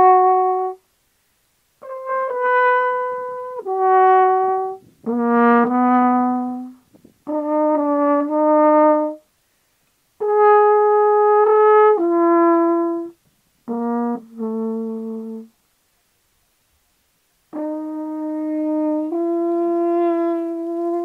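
A brass instrument, horn-like in tone, playing a slow melody in short phrases of held notes that step between pitches, with silent pauses between the phrases.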